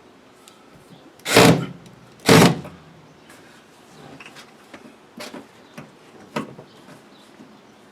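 Two loud scraping slides about a second apart, made by hardware being worked into place in a 1966 Chevy C20 pickup's cab, followed by a few lighter clicks and knocks.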